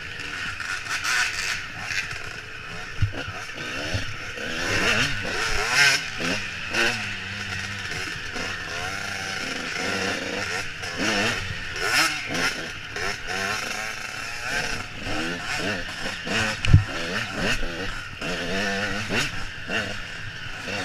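Dirt bike engine revving up and down as the rider rides a rough trail, with a few sharp knocks, the loudest about 17 seconds in.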